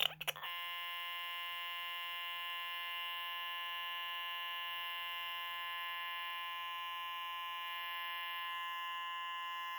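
Furby's speaker stuck on one steady, buzzy electronic tone that sets in about half a second in and holds without changing: a sound-chip glitch brought on by interrupting its battery power.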